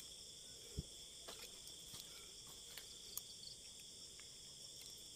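Faint, steady night chorus of insects, a continuous high-pitched trilling in several layers. A few light clicks and one short knock about a second in sound over it.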